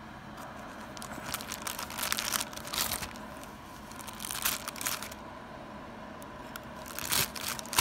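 Scissors cutting into a plastic mailing bag, the plastic crinkling and rustling with irregular snips and crackles from about a second in. The scissors are too blunt to cut it easily.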